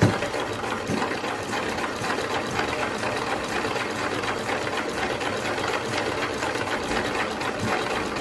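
Homemade single-cylinder petrol engine, its cylinder made from a jeep wheel cylinder, running steadily with a fast, even clatter.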